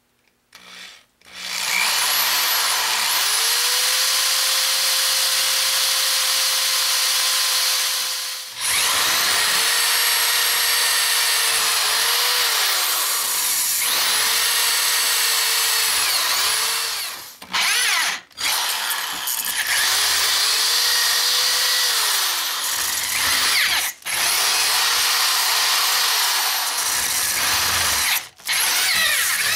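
Hand-held power drill boring holes through an aluminum plate held in a vise. The motor whine rises as it spins up, holds steady while cutting and falls off as it stops, in several long runs with a few brief pauses between them.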